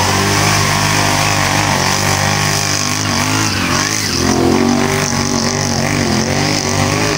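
ATV engines revving, their pitch rising and falling as the quads drive the course.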